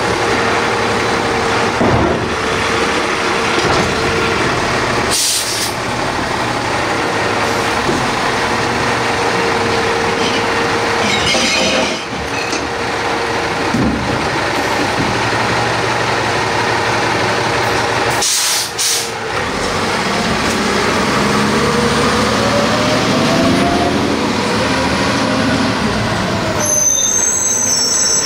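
Diesel engine of a Peterbilt 320 automated side-load recycling truck running, with a steady whine from the Labrie Helping Hand arm's hydraulics and a few thumps of carts. About two-thirds of the way through the engine rises in pitch as the truck pulls forward, and near the end a brief high squeal and hiss come from its air brakes.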